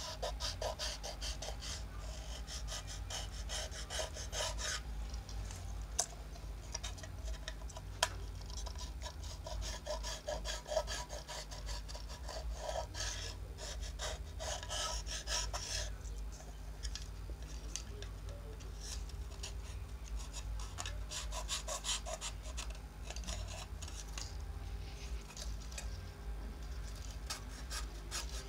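A metal pick scraping along the edge of a phone's front frame in quick, repeated rasping strokes, with short breaks between runs.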